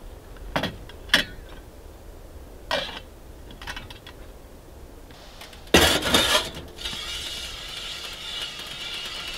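A few sharp mechanical clicks and knocks, then a louder clatter lasting under a second about six seconds in, followed by a steady hiss.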